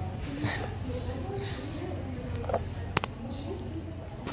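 Crickets chirping in a steady high pulse several times a second over a low steady hum, with one sharp click about three seconds in.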